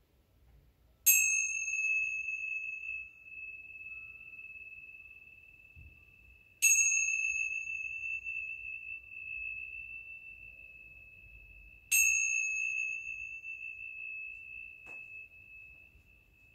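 A high-pitched chime struck three times, about five seconds apart, each stroke ringing on in one long steady tone that slowly fades. A faint tap comes near the end.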